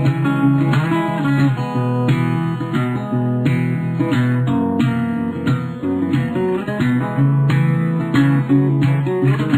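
Music: an acoustic guitar strumming chords in a steady rhythm, with no singing yet.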